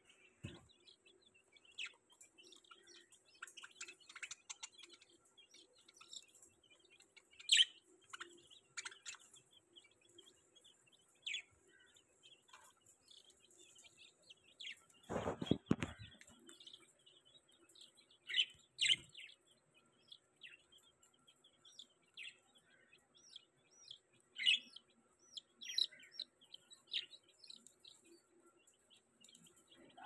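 Budgerigars and small chicks in a cage chirping and peeping in short, scattered calls. A brief rumbling knock comes about halfway through.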